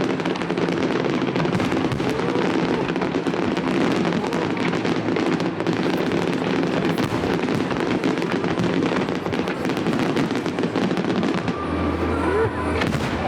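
Fireworks display going off without pause: a dense run of bangs and crackling.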